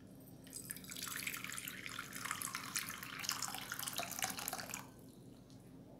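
Water poured in a steady stream from a jug into a small bowl, splashing. It starts about half a second in and stops just before the five-second mark.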